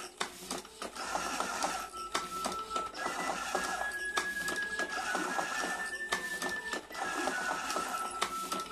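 Electric cigarette-rolling machine running, with a fast, dense mechanical clatter over a thin motor whine that shifts up and down in pitch a few times, with short dips about two, four and seven seconds in.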